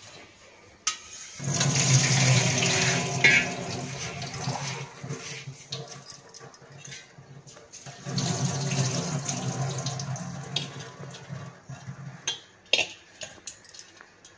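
Water pouring twice over basmati rice in a steel mesh strainer, splashing into a stainless steel sink as the rice is rinsed, with a few sharp metallic clinks between and after the pours.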